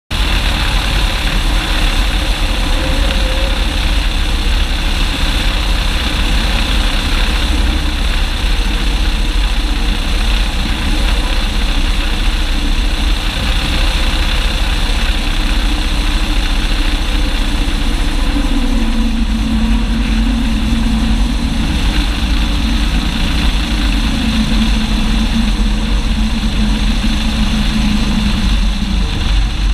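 Loud wind rushing over the microphone mixed with the 1946 Luscombe 8A's engine and propeller running on approach to landing. A steady drone comes in about two-thirds of the way through and eases slightly lower in pitch as the plane settles over the runway.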